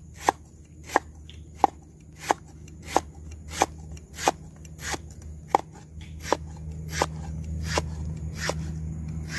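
A kitchen knife slicing a firm green vegetable into rounds on a round wooden chopping board. The blade knocks on the wood in a steady rhythm, about once every two-thirds of a second.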